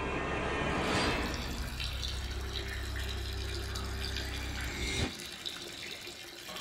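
Water running and splashing in a toilet, over a low steady drone that cuts off abruptly about five seconds in.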